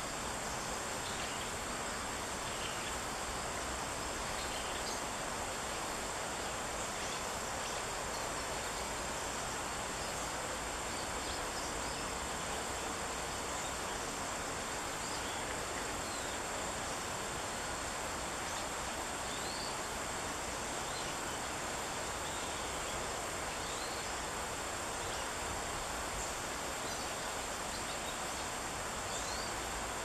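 Grey-streaked flycatcher giving faint, thin, high notes now and then, over a steady high-pitched insect drone and a constant background hiss.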